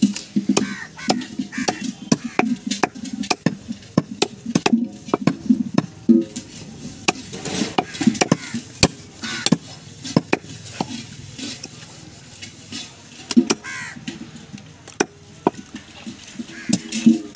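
Large knife chopping goat meat on a wooden log chopping block: sharp, irregular knocks, a few a second.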